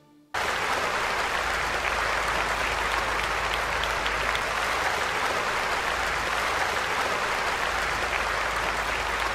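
Applause from a crowd, cutting in suddenly just after the start and then holding steady.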